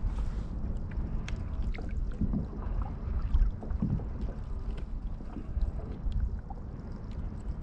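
Wind buffeting the microphone over water lapping against a kayak's hull, with scattered light clicks.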